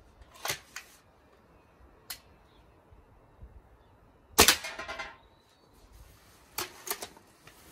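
A Hatsan Striker Edge .22 spring-piston air rifle fires once, about four and a half seconds in, with a short ringing tail. Several lighter, sharp clicks and knocks come before and after the shot.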